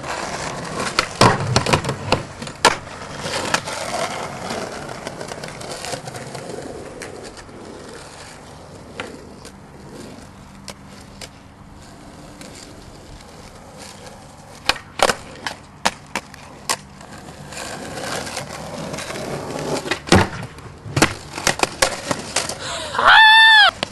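Skateboard wheels rolling on asphalt, broken by many sharp clacks of the board popping and landing during a line of tricks. A person shouts near the end.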